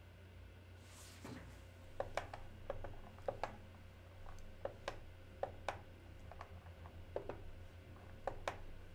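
Faint, irregular sharp clicks, about fifteen of them, from someone working a computer, over a steady low hum.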